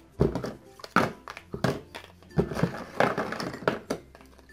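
Stiff puzzle cards being handled and sorted by size: a string of short taps and clacks as the cards knock together and are set down in a cardboard box, with light rustling between.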